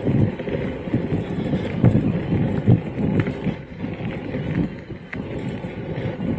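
Electric mountain bike rolling over a rough trail: irregular low thuds and rattles as it takes the bumps, with a couple of sharp clicks partway through.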